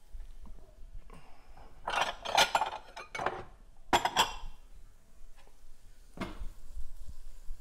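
Cookware and a utensil clinking and knocking against a skillet and dishes in several short bursts of clatter, the loudest about two and four seconds in.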